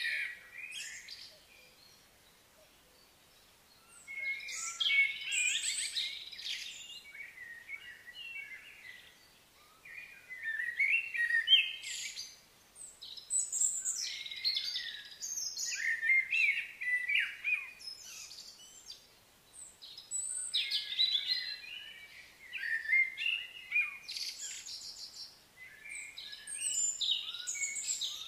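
Songbirds singing: quick, high-pitched chirping phrases in bursts every few seconds, with short quiet gaps between them.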